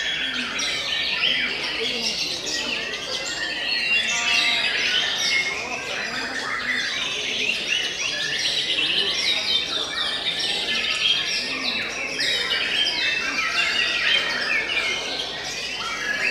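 White-rumped shamas (murai batu) singing without pause, a dense stream of rapid, varied whistles and trills from several birds at once.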